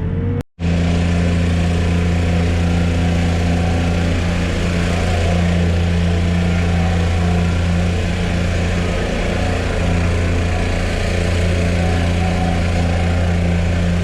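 Backhoe's diesel engine running steadily at an even speed, with a deep, constant hum. The sound cuts out abruptly for a moment about half a second in.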